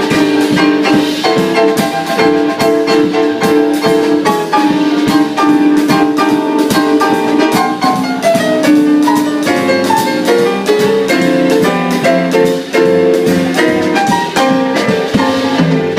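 A live jazz-swing band playing an instrumental break, with pitched instruments holding and moving through notes over drums keeping a steady beat.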